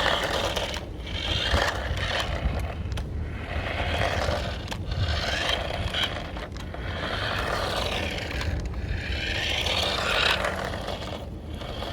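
Remote-control toy dump truck driving on a hard, flat floor: its small electric drive motor and gears whir and its wheels scrape along, in several runs a second or two long that stop and start again.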